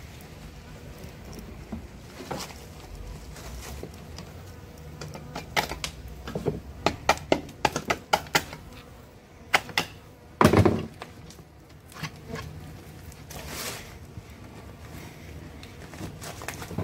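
Wooden stingless-bee hive box parts being handled and knocked: a quick run of light clicks and knocks about halfway in, then a heavier thunk, over faint buzzing of bees.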